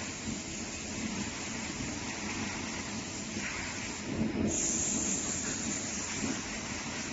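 CNC oscillating knife cutter working on corrugated cardboard: steady machine running noise as the tool head travels, with a high hiss that comes in about four and a half seconds in and holds.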